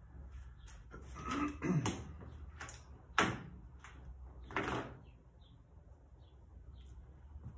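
Handling noises: a few rubs and scrapes, then a sharp knock about three seconds in and one more rub soon after. Faint short high chirps repeat in the background.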